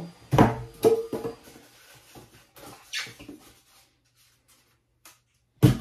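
Packing foam being pulled out of a 3D printer's box: handling noise with a few sharp knocks, the loudest about half a second in and again near the end, and a brief squeak around the first second.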